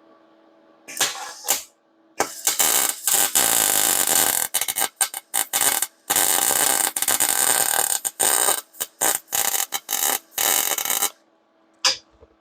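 MIG welder arc crackling as it welds thin steel on a bed frame's center support: a short burst about a second in, then a run of about nine seconds broken by brief pauses, and one short blip near the end.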